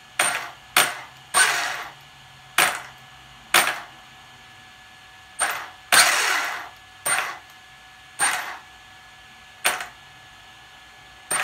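A Lehner 3060/6 brushless motor on a 1/5-scale electric RC car jerks the drivetrain with a violent click each time the throttle is blipped: about eleven sharp jolts at irregular intervals, each dying away quickly. The harsh hit comes from the MGM ESC's minimal starting power (P83) being set too high.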